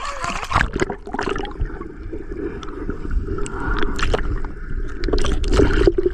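Shallow seawater sloshing and splashing around someone wading and handling the water, with irregular small splashes over a steady low rumble.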